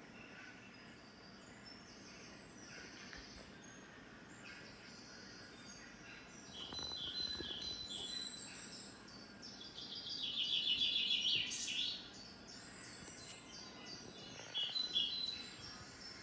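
Birds chirping and singing through a television's speaker during an outdoor nature scene, many short high calls, with a loud run of rapid chirping about ten seconds in and another short burst near the end.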